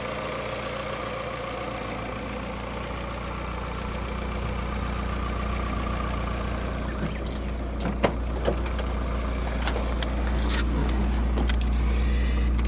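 Toyota AE111 Corolla Levin idling steadily at about 1000 rpm, with its electric radiator cooling fan running, a steady hum. A few light clicks and knocks come in over the second half.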